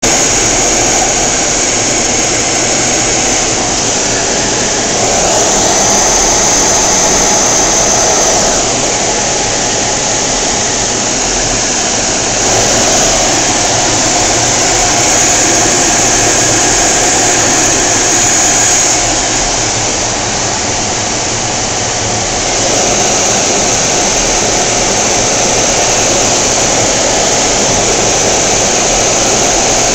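Jet engine and air noise heard from inside the cockpit of a Blue Angels F/A-18 Hornet in flight, its twin General Electric F404 turbofans running: a steady, loud rushing noise with a high whine that shifts in pitch now and then.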